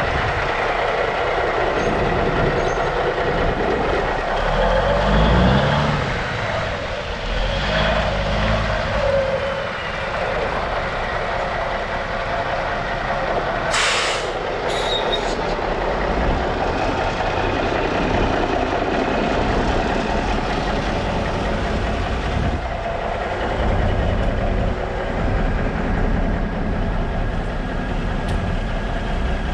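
Heavy diesel semi tractor, a 1996 Freightliner FLD120, idling steadily with a low rumble. About fourteen seconds in come two short hisses of air from its air system.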